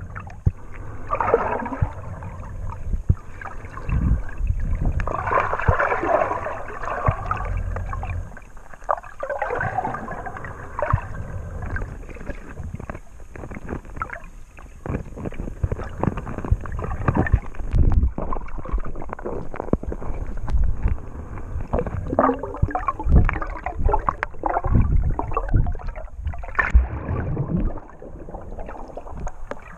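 Muffled underwater noise picked up by a camera held under the sea: water moving and sloshing with a swimmer's strokes, broken by irregular knocks.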